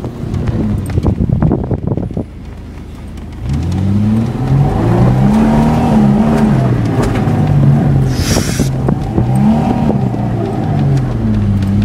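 Toyota Lexcen's engine revving hard, its pitch rising and falling again and again as the car is spun around in the dirt. A rough clatter comes first and then a short lull before the revving starts. A brief hiss comes about eight seconds in.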